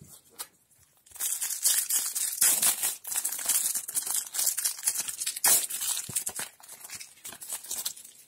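Foil trading-card booster pack being torn open by hand, the wrapper crinkling and crackling in a dense run of quick rips that starts about a second in, with one sharper rip partway through, and thins out near the end.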